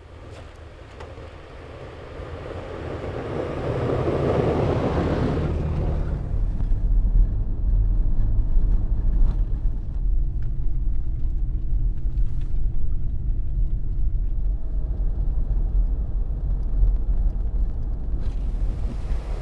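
Toyota 4Runner driving on a snowy trail, a steady low engine and tyre rumble that builds over the first few seconds. A swell of rushing noise comes about four to five seconds in, then the rumble runs on steadily with a few faint ticks.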